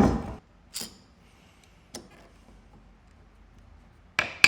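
Workshop handling sounds of tools on a wooden board: a low thud at the start, a few faint clicks, then two sharp knocks with a short metallic ring near the end.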